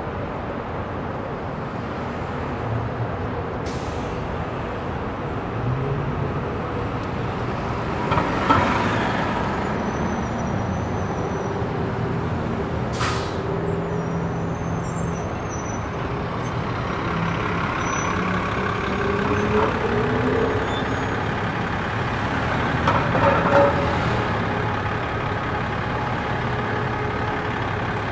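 City road traffic: a steady wash of passing vehicles, with the engines of heavy vehicles rising and falling in pitch. Two brief louder bursts come about a third of the way in and near the end, and there are a couple of sharp clicks.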